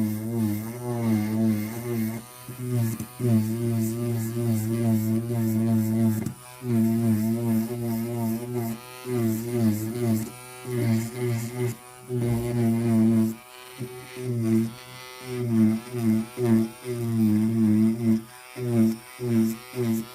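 Electric nail drill (e-file) grinding a gel nail, a steady motor drone whose pitch wavers as the bit presses on the nail. It drops out briefly several times as the bit is lifted off.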